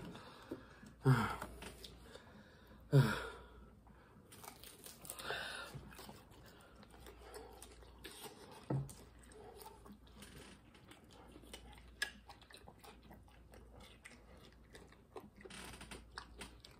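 A person chewing food with small wet clicks and crunches, close to the microphone. A few short vocal sounds break in about a second in, three seconds in and again around five seconds.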